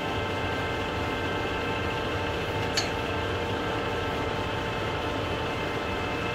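Metal lathe running steadily at very low spindle speed, about 7 revolutions a minute, its motor and gear train giving a constant hum with several held tones. A single sharp click about three seconds in.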